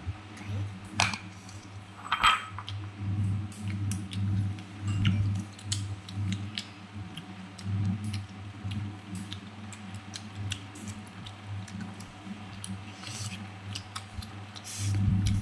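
Crisp green mango slices being chewed and handled: irregular small crunches and clicks, with two sharper clicks in the first few seconds.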